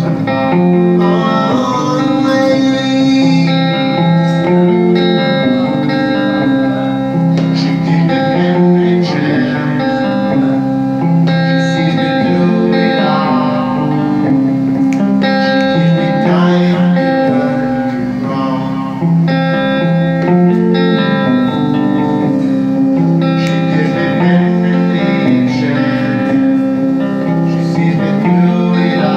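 Live music: an electric guitar playing, with a man singing into a microphone.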